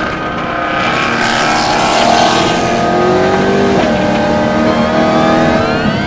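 BMW M3 E92's V8 running through an aftermarket Valvetronic performance exhaust, loud, with revs falling off around the middle and climbing steadily under acceleration near the end.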